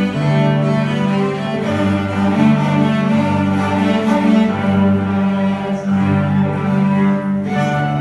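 Children's cello ensemble bowing a slow melody together in held notes, moving to a new note about once a second.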